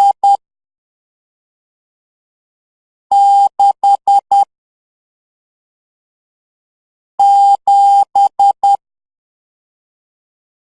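Morse code beeps, one steady tone keyed on and off in short and long elements. The last two dots of the digit 5 come first, then the digit 6 (one long, four short), then the digit 7 (two long, three short), with about three seconds of quiet between groups.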